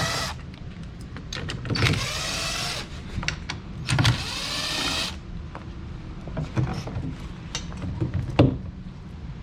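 A cordless power tool spins off the mirror's 10 mm nuts in short bursts of rising whine: one ends just after the start, then two more at about two and four seconds in. Light clicks and knocks of the socket and nuts follow, the sharpest near the end.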